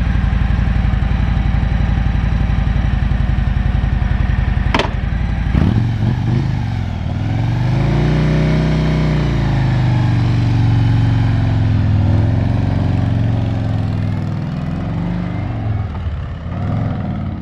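Motorbike engine running with a rapid steady beat, then a sharp click about five seconds in, after which the engine note rises and falls in pitch as it speeds up and slows.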